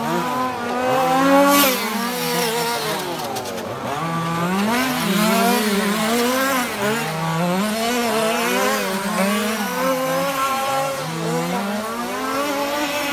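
Zenoah 26cc two-stroke engines of 1/5-scale RC cars on track, revving up and falling back again and again, every second or two, as the cars lap.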